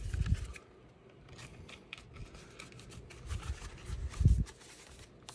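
Light handling of cardboard and paper packaging: faint rustles, scrapes and clicks, with a dull thump just after the start and a louder one about four seconds in.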